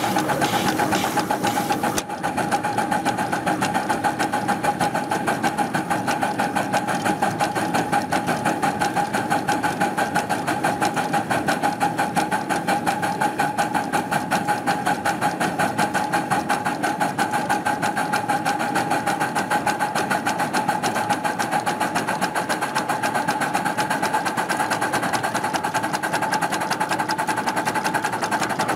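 Live-steam miniature Mogul (2-6-0) locomotive running along its track with a rapid, even mechanical beat. A steam hiss in the first two seconds cuts off abruptly.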